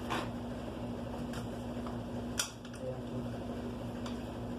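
Scattered sharp metallic clicks from a Stihl FS 290 brush cutter's two-stroke engine turned over slowly by hand, the loudest about two and a half seconds in, over a steady hum. The clicks are the strange noise from inside the engine, which the mechanic suspects is the crankshaft, though it could be the piston's needle bearing or a main bearing.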